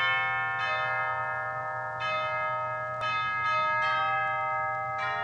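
Church bells chiming a slow sequence of notes, about one strike a second, each note ringing on and overlapping the next.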